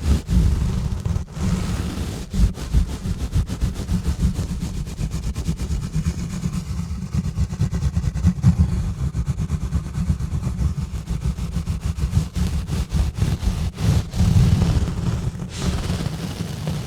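Exfoliation gloves rubbing and scratching directly on a bare microphone: a deep rumble made of many quick, uneven scrubbing strokes.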